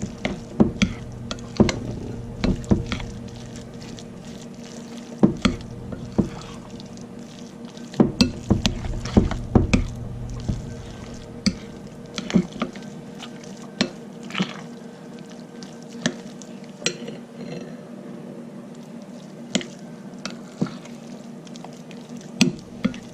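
A spoon stirring a thick cheese sauce in a bowl, with irregular clinks and knocks against the bowl and a soft squishing of the mixture. The knocks come thicker in the first half.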